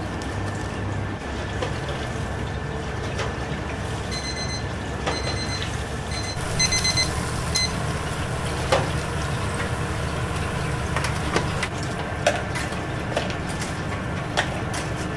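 Steady low hum of a shop kitchen. About four seconds in, an electronic timer beeps in quick short runs for about three seconds. In the second half come a few sharp clicks of metal tongs against a steel tray of fried chicken.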